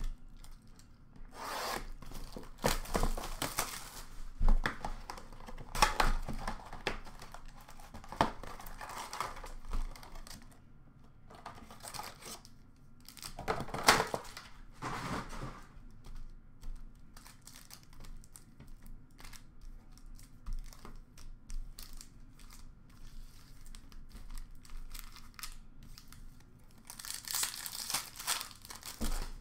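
Upper Deck hockey card packs and their box being torn open by hand, with wrappers crinkling. There are several separate rips, the loudest about halfway through, and rustling between them.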